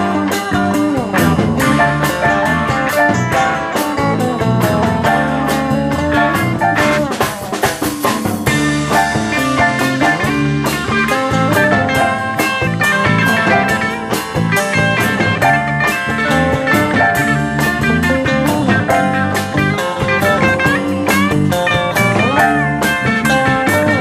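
Live band playing an instrumental blues-rock passage: electric guitar lines with notes bending in pitch over a steady drum kit beat and the rest of the band.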